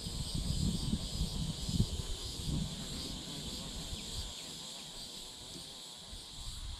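Insects droning steadily in the shoreline trees, a high even buzz with a faint pulsing to it. Low uneven rumbling on the microphone in the first few seconds dies away.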